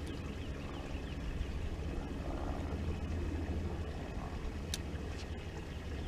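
Steady low hum and noise from a small fishing boat on open water, with faint light ticks and one sharp click about three-quarters of the way through.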